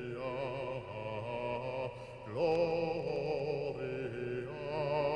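Background music of chanted voices singing long held, wavering notes over a low drone, with a louder phrase entering about two and a half seconds in.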